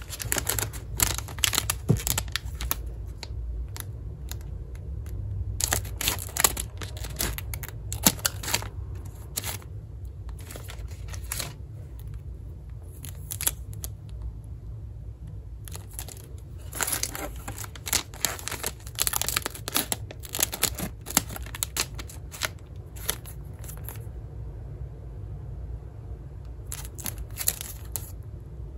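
Plastic wrappers of wafer packs crinkling and being torn open by hand, in bursts of crackly rustling with short pauses between. A steady low hum runs underneath.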